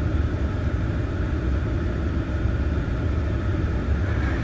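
A steady low mechanical rumble with no break or change, running idling-engine or machinery noise in the background.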